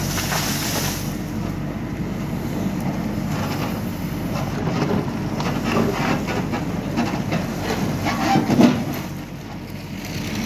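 Hidromek backhoe loader's diesel engine running steadily under hydraulic load as the backhoe bucket works in stony soil. Rocks and gravel scrape and clatter against the steel bucket, with a louder clunk about eight and a half seconds in, after which the engine eases off.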